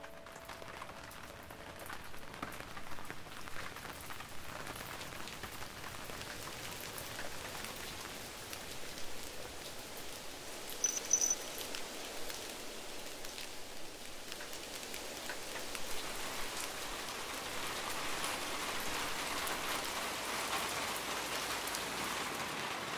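Rain falling, light at first and growing steadily heavier and louder, a dense patter of drops. A brief high chirp sounds near the middle.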